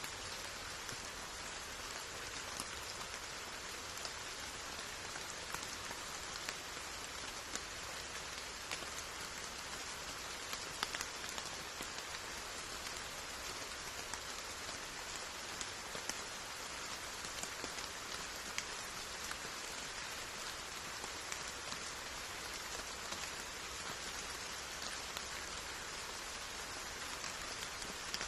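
Steady rainfall with close, scattered drops pattering on a surface.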